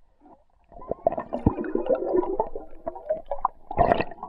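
Water gurgling and bubbling as picked up by an underwater camera, starting about a second in, thick with small clicks and knocks, with a louder burst near the end.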